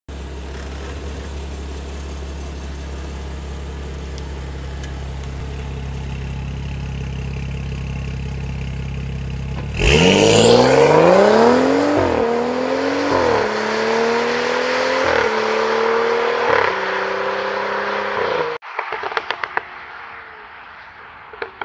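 BMW 335i's turbocharged N55 straight-six through a loud aftermarket exhaust, idling steadily, then revving hard as the car pulls away. The pitch climbs and drops back several times as it shifts up through the gears, and the run ends with a string of sharp exhaust pops and crackles as it fades away.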